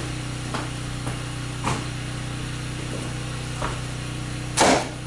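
Hammer blows knocking a cross 2x4 loose inside a wall: a few light taps, then a heavy strike near the end, over a steady low hum.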